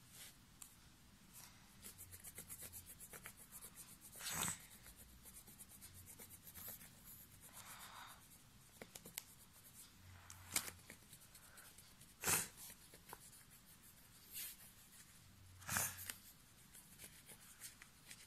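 Coloured pencil hatching back and forth on paper: a faint, dry scratching in runs of rapid strokes, broken by four sharper knocks.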